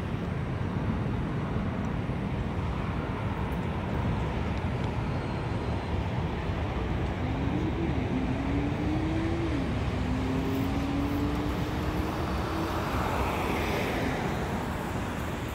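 Steady low rumble of a Boeing 747's jet engines as it climbs away after takeoff. From about seven seconds in, an engine note rises in steps, dropping back twice before levelling off, like a vehicle accelerating through its gears.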